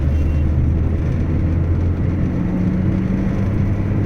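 Swift petrol car, running a freshly fitted replacement engine, driving at speed, heard from inside the cabin: a steady low engine and road drone. A slightly higher hum joins it for about a second, a little over two seconds in.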